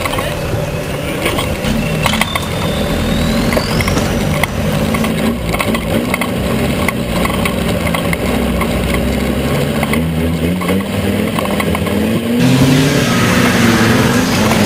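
Off-road trial 4x4 prototype's engine revving under load as it crawls up a steep muddy slope, the revs rising and falling. About twelve seconds in it becomes louder and closer.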